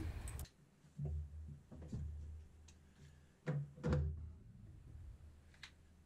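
Dull thumps and knocks from working at the car's stripped floor tunnel, four of them in the first four seconds, followed by a couple of faint clicks near the end.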